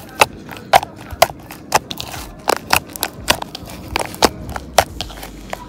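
White slime being poked and pressed with the fingertips, giving sharp clicking pops as air pockets burst, about two a second.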